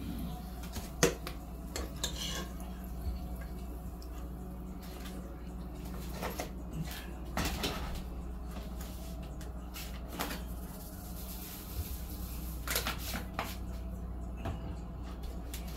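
Scattered clinks and knocks of kitchen dishes and utensils being handled, the sharpest about a second in, over a steady low hum.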